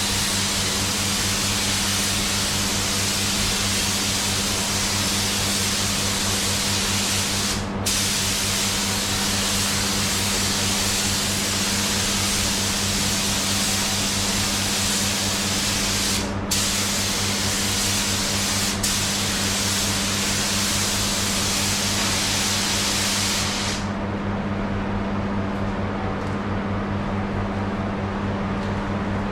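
Spray gun hissing as paint is sprayed onto a car panel, with brief breaks about eight and sixteen seconds in, and the spraying stopping a few seconds before the end. A steady hum runs underneath throughout.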